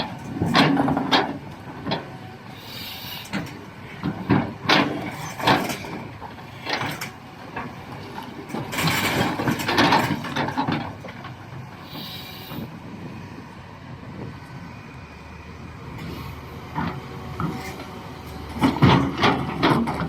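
Doosan DX390 excavator working rock: its diesel engine runs steadily under repeated irregular clanks and scraping knocks of rock against steel, with a longer grinding stretch about halfway through and a cluster of knocks near the end.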